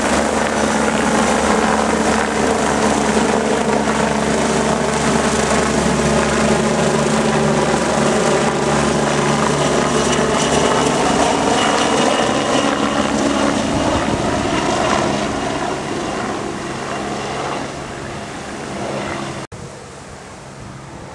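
Eurocopter BK 117 twin-turbine rescue helicopter flying overhead after takeoff: steady, loud rotor and turbine noise whose pitch bends slowly as it passes, then fading as it flies away. About a second and a half before the end it cuts off suddenly, leaving wind noise on the microphone.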